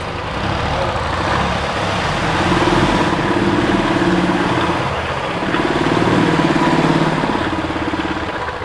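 Busy street traffic with vehicle engines running. A deeper steady engine drone swells twice, for a couple of seconds each time.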